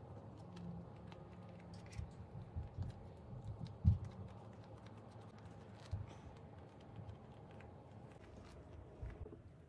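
Soft scattered taps and sticky handling noises of hands folding and rolling a wet rice paper wrapper around cabbage and tofu filling on a plastic cutting board, with one louder low bump about four seconds in.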